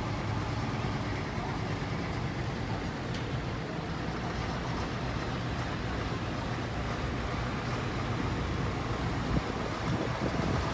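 Steady drone of an aircraft's engines, an even noise with a low hum and no clear rise or fall.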